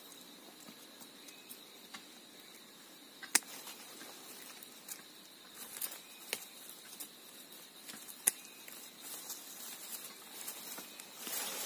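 Hands scraping soil and pulling at dry stalks and roots around a dug-out shrub: a soft scratching rustle broken by a few sharp snaps, the loudest about three and a half seconds in and another about eight seconds in.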